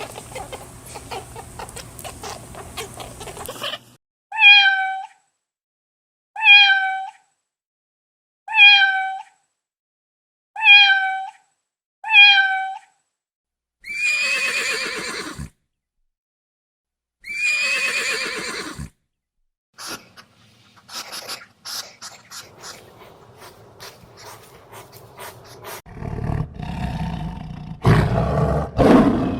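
A run of different animal calls. First come five short, identical cat meows about two seconds apart. Then two longer, harsher calls, scattered clicks, and a loud low growl-like roar near the end.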